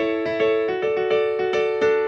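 Background music: piano notes played at an even, unhurried pace, about two or three notes a second.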